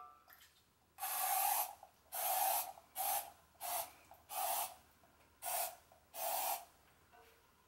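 Aerosol can of non-stick cooking spray hissing in seven short bursts as it coats the inside of a metal loaf pan.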